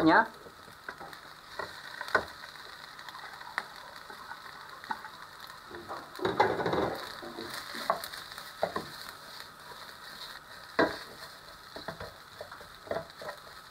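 Cooked rice frying with scrambled egg in a hot non-stick pan, sizzling while a spatula stirs and scrapes it, with scattered sharp knocks of the spatula against the pan.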